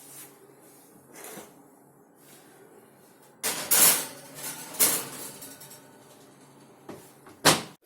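Kitchen clatter from putting a baking dish into an oven: a few sharp knocks and clanks of dish and oven door, the loudest just before the end, over a faint steady hum.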